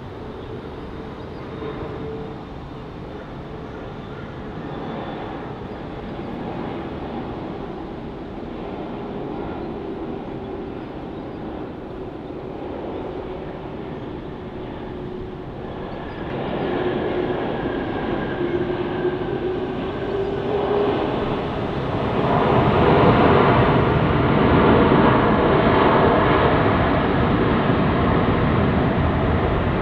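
Jet airliner engines running and growing louder as the aircraft comes closer, with a low whine that rises slightly in pitch. The noise steps up about halfway through and again a few seconds later.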